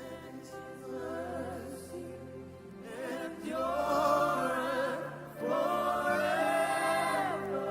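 Choir singing a slow gospel worship song over sustained backing chords. The voices grow louder about three seconds in and end on long held notes.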